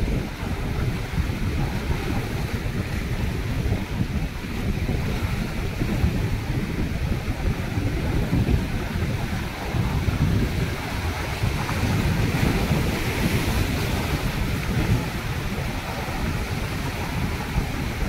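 Sea waves surging and churning through a narrow channel between rocks: a steady rushing with a heavy low rumble, with wind buffeting the microphone.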